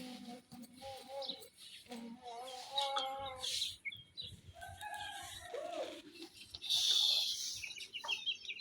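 Chickens clucking, with short higher chirps among the calls. The calls come at irregular intervals, with a louder high-pitched stretch about seven seconds in.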